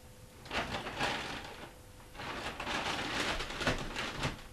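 Rustling and shuffling handling noise in two stretches: a short one about half a second in, and a longer one from about two seconds in.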